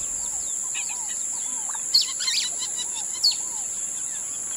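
Birds chirping over a steady high-pitched insect drone. A few sharp, louder chirps come about two and three seconds in.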